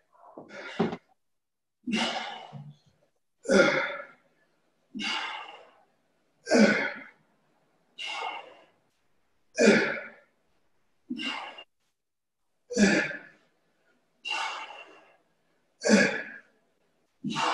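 A man's sharp, forceful breaths, one about every second and a half, alternately louder and softer, keeping time with the side-to-side turns of kettlebell Russian twists.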